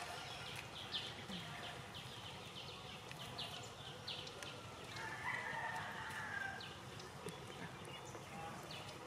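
A rooster crows once, faint, a single long call about five seconds in. Before it, a bird gives a quick run of short, high chirps.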